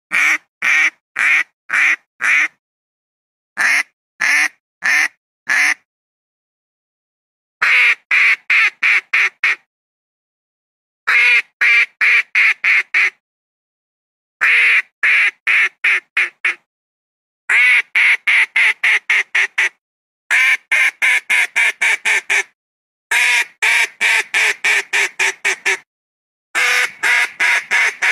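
Duck calls played as a hunting lure: runs of about five to ten short calls, three to five a second. Each run is cut off into dead silence before the next, as in an edited, looped recording.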